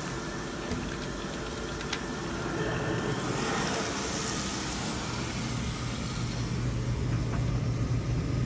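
Water running steadily into a Samsung washing machine through an inlet valve whose solenoid is shorted, so the machine keeps filling nonstop. A steady low hum joins about five seconds in.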